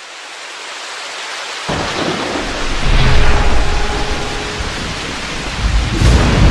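Rain and thunder sound effect: steady rain fading in, with rolling thunder starting about two seconds in that swells again near the end.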